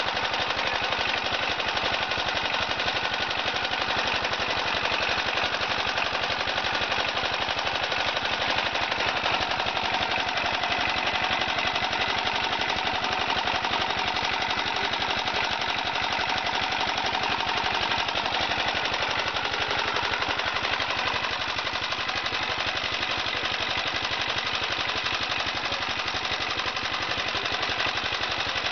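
Charcoal briquette extruder running steadily with a fast, continuous clatter while charcoal dust is fed into it and hollow briquettes are pushed out.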